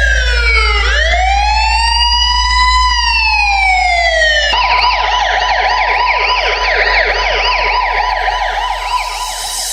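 Police-style siren sound effect in a DJ sound-check trance track, over a steady deep sub-bass drone. The siren first wails down, then slowly up and back down, and about four and a half seconds in switches to a fast warbling yelp.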